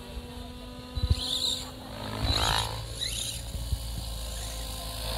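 Electric RC helicopter, a scale Hughes 500e on Mikado Logo 690 SX mechanics, flying in to land: a steady motor and gear whine with rotor sound. It swells into a louder rush midway. There are a few low thumps about a second in.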